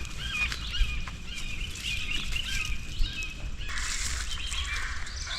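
Several wild birds chirping and calling in quick, repeated short notes. About two-thirds of the way through, a steady high hiss-like buzz sets in under them.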